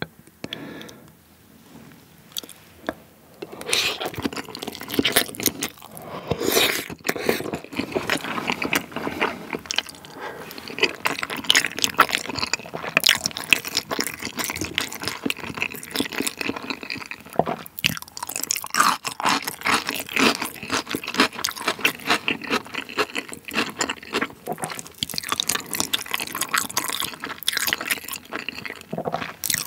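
Close-miked chewing of a large mouthful of raw salmon sushi: wet, irregular smacking and squishing mouth sounds, starting about three seconds in and going on steadily.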